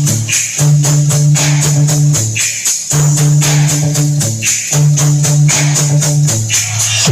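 Loud dance music played through a mobile sound system at a sound check: sustained heavy bass notes in phrases of about two seconds over a fast, steady percussion pattern.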